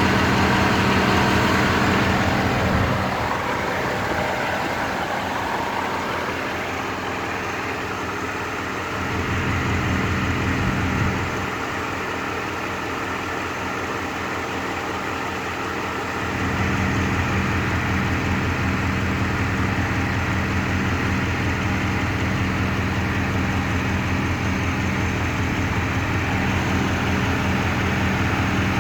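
Rover 3.5-litre V8 idling with a misfire and a wobbling pulley. The running is steady, dropping quieter from about three seconds in and coming back louder about halfway through.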